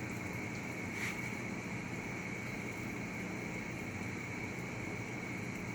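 Steady low hum and hiss of background noise with a faint high whine, broken only by a faint click about a second in.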